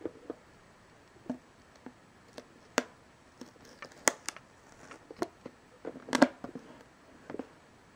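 Fingers handling a GoPro retail box: irregular clicks, taps and crinkles from its clear plastic case and cardboard sleeve. The loudest cluster comes about six seconds in.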